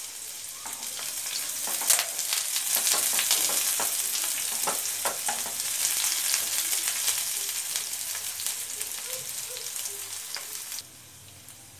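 Chopped onions and garlic sizzling in hot oil in a non-stick frying pan while a spatula stirs them, with light scraping clicks. The sizzle swells over the first couple of seconds and drops away abruptly near the end.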